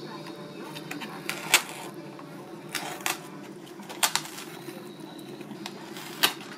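A few sharp clicks and crackles of a paper instant-noodle cup and its foil lid being handled, four distinct ones with the loudest about a second and a half in and near the end, over a steady low hum.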